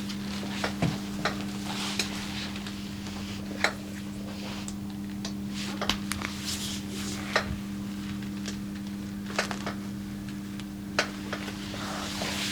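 Hands rubbing over the body during a massage, a soft rubbing hiss broken by scattered short, sharp taps, over a steady low hum.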